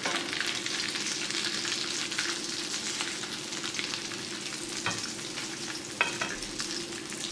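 Potato croquettes frying in a pan of hot cooking oil, a steady sizzle and crackle of bubbling oil. A few sharp clicks come as a metal fork moves them against the pan, the sharpest about six seconds in.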